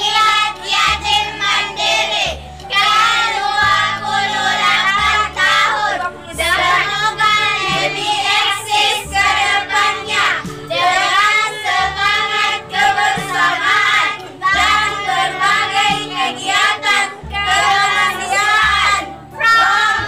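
A group of children and women singing together, with instrumental music accompanying them.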